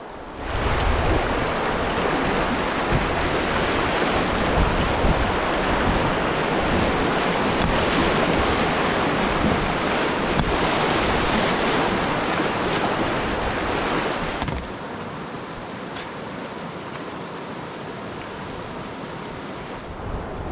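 Rushing whitewater of a creek riffle washing around a kayak as it runs through, with wind buffeting the microphone. The rush comes in loud about half a second in and falls to a softer wash of moving water about fourteen seconds in, as the kayak reaches calmer water.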